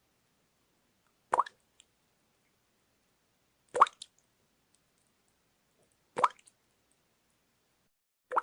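Water dripping, one drop at a time, evenly about every two and a half seconds. Each drop is a short plink with a quick upward glide in pitch, and there are four in all.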